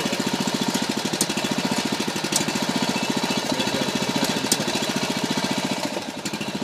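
Small gas engine driving the hydraulic pump for pier-lifting cylinders, running steadily with a fast, even chug while the cylinders are pressed to around 4,500 to 5,000 psi to lift a settled foundation corner. A few sharp ticks sound over it.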